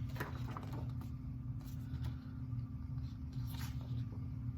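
Paper rustling a few times as printed clue sheets and letters are handled, over a steady low hum.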